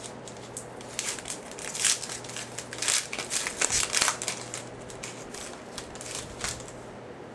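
A trading card pack wrapper crinkling and crackling as it is torn open and peeled off the cards, in an irregular run of crinkles that dies down near the end.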